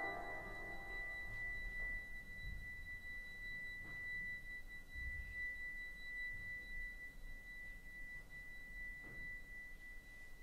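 A single high, pure tone held steady, with a faint overtone above it, over a low rumble; the last of a keyboard-like piece fades out at the start.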